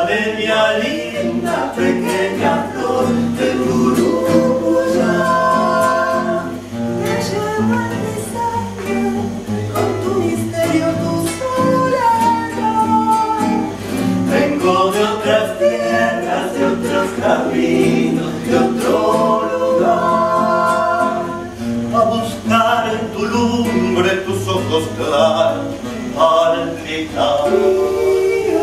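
Several voices singing a song together to an acoustic guitar, performed live.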